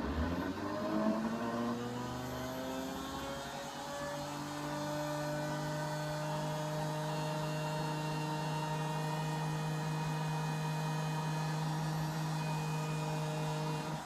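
A CNC router spindle with a 5 mm dowel drill bit switched on. Its whine rises as it spins up over the first few seconds, then holds at a steady speed.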